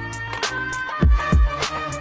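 Background music with a steady hip-hop beat and heavy bass kicks.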